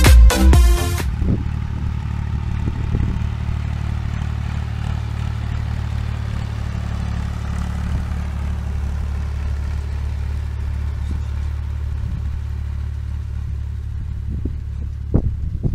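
Dance music cuts off about a second in, leaving a tractor engine running steadily as it pulls a boom sprayer, heard across the field as an even low drone. A few short low bumps come near the end.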